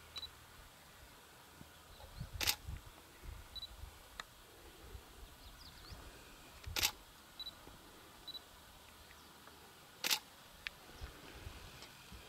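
Three single camera shutter clicks, sharp and a few seconds apart, over a quiet background with a few soft low thumps.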